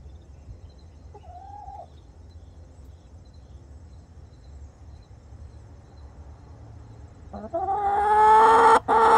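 Backyard chicken calling: a faint short cluck about a second in, then near the end a loud, drawn-out squawk followed by a short second squawk.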